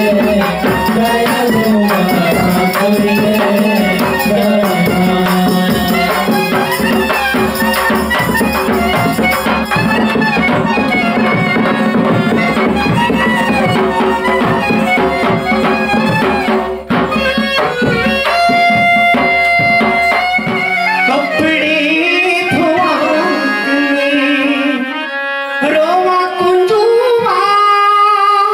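Live Himachali folk music: hand drum and harmonium playing a brisk dance tune. About two-thirds of the way in, the drumming stops and the harmonium holds notes, then a voice starts singing with it.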